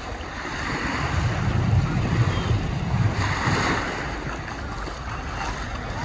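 Small waves washing up onto a sandy beach, the wash rising and falling, with wind rumbling on the microphone.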